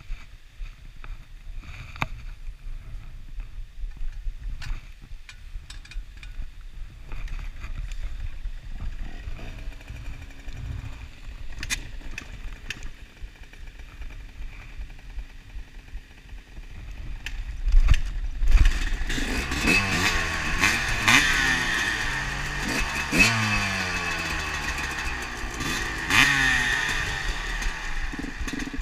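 Suzuki RM two-stroke motocross engine kick-started about two-thirds of the way in, then run and revved in repeated rising and falling blips. Before that, only wind on the microphone and a few scattered clicks.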